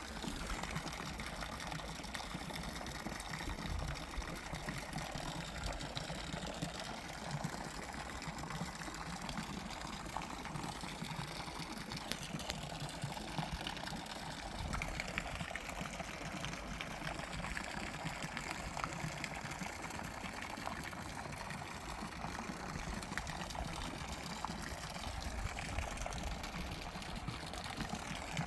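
Water running and pouring steadily, an unbroken splashing trickle with no pauses.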